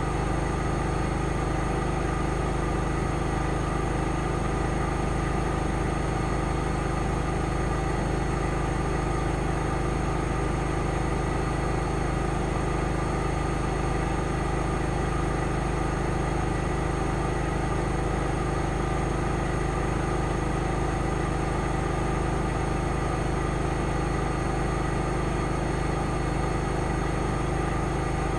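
AEG Lavamat 8000 Series front-loading washing machine in its final spin at top speed, up to 1600 rpm: a steady hum of motor and drum, several constant tones over a rush of air, with no change in pitch or level.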